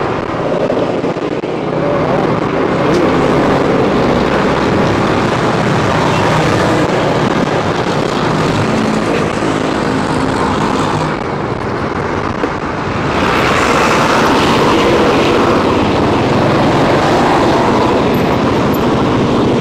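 Motorcycle running on the road: a steady engine with road noise. It eases for a couple of seconds past the middle, then gets louder again.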